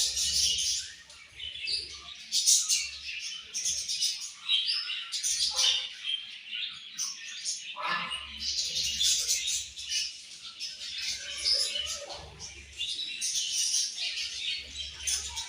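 A colony of budgerigars chirping and chattering, many short calls overlapping without a break.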